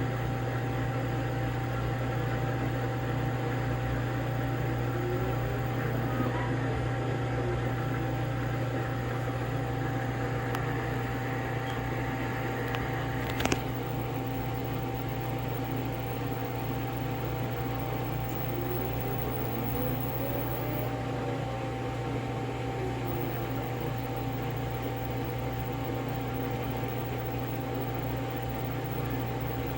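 LG front-load washer running: a steady machine hum with a whine that slowly rises and falls twice, as the drum motor speeds up and slows down. One sharp click about 13 seconds in.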